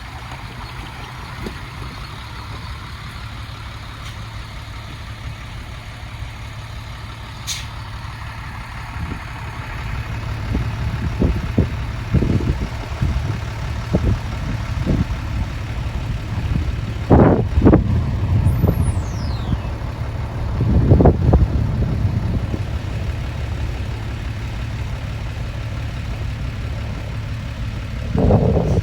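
Diesel engines of decorated trucks running steadily as they pull in, growing louder partway through, with several short louder bursts and a thin falling high whistle about two-thirds of the way in.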